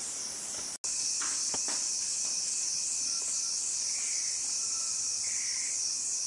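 A steady chorus of insects: a high, shrill trill that pulses evenly, a few beats a second. It cuts out for an instant under a second in.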